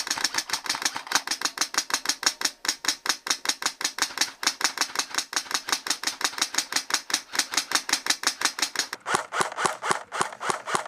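Airsoft electric rifle firing on full auto: long strings of rapid, evenly spaced shots with brief breaks, the shots taking on a different, fuller sound after a pause about nine seconds in.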